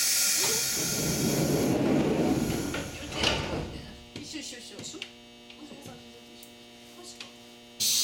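Stopped electric train car at a station: a hiss and rumble for about four seconds, with a knock about three seconds in, then settling to a steady electrical hum.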